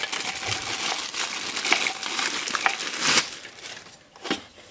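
Thin plastic packaging bag crinkling and rustling as hands pull an angle grinder's side handle and disc-changing spanner out of it, loudest about three seconds in, then dying down with a light knock near the end.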